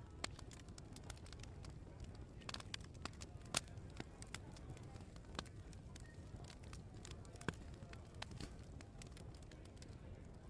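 Open wood fire crackling, with irregular sharp pops and snaps; the loudest pop comes about three and a half seconds in. A steady low rumble runs underneath.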